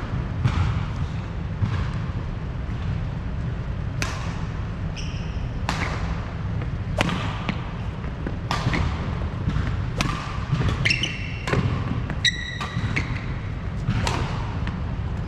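Badminton rally: crisp racket strikes on the shuttlecock, roughly one every second and a half, with a few sneaker squeaks on the wooden court floor about two-thirds of the way in, over a steady low rumble of the hall.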